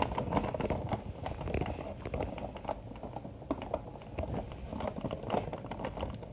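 Irregular light clicks, taps and rubbing from the phone and a plastic action figure being handled close to the microphone.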